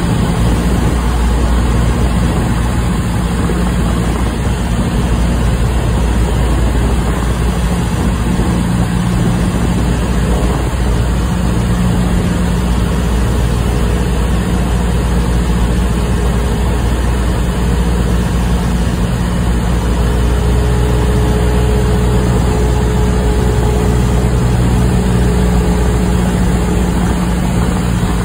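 Cessna 172SP's four-cylinder Lycoming engine and propeller running with a loud, steady drone, heard from inside the cabin during the landing approach.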